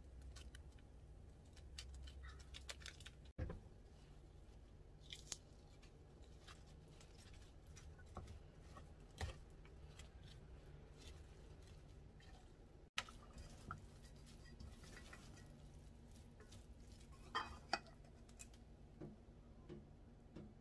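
Faint scattered clicks, taps and scrapes of a wooden spoon and wooden chopsticks stirring rice and greens in a metal mixing bowl.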